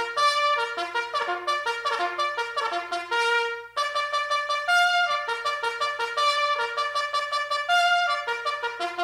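Cornet playing a quick melody of short, separate notes, with a brief break about four seconds in before the phrase carries on with a few longer notes.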